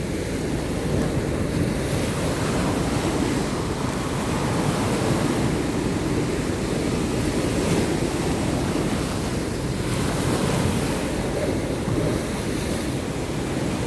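Sea waves washing onto a sandy beach, a steady low rush of surf rising and falling gently, with sea wind buffeting the microphone.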